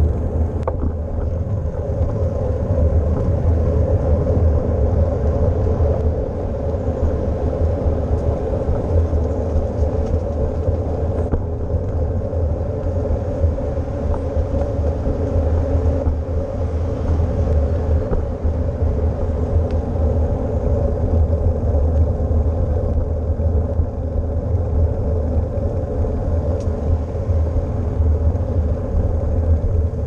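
Steady low rumble of wind buffeting a GoPro's microphone on a moving bicycle, with a steady hum of bicycle tyres rolling on pavement.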